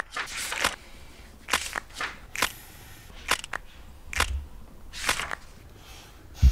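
Pages of a book being flipped and rustled: a string of short, irregularly spaced paper swishes.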